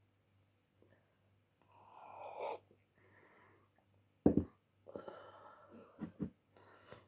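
Breathing and throat sounds of a person with flu: a noisy breath drawn in, then a short sharp throat sound about four seconds in, followed by a few smaller ones.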